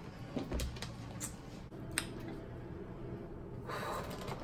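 A few light clicks and taps from a plastic water bottle and its cap being handled and set down on a glass table, then a short breath blown out through the mouth near the end, from a mouth burning after spicy ramen.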